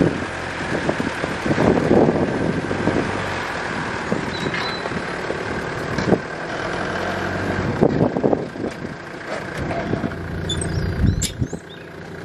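A van's engine running steadily under load as it slowly tows the long bandsaw-mill trailer, with about half a dozen sharp knocks and clanks from the trailer frame along the way.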